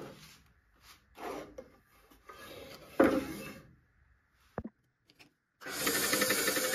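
Several separate rasping strokes of a hand tool working a wooden bar, then a single sharp knock. Near the end a power tool starts and runs loud and steady.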